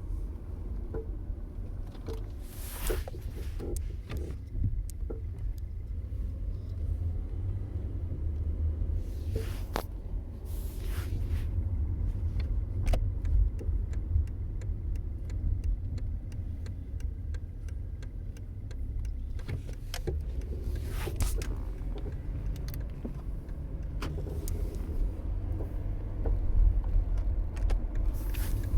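2006 Toyota Camry LE being driven, with a steady low road rumble and a handful of sharp, scattered knocks. The knocks are the car's clunking over bumps and while steering.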